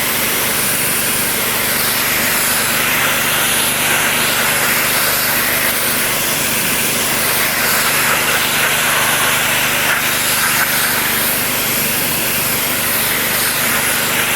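Pressure washer running steadily, its high-pressure water jet from a telescopic lance spraying against a building wall: a loud, even hiss over a low motor hum.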